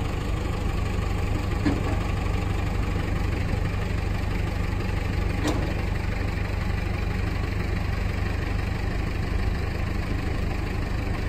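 Diesel engine idling steadily with a low rumble, with a couple of short knocks about two and five and a half seconds in.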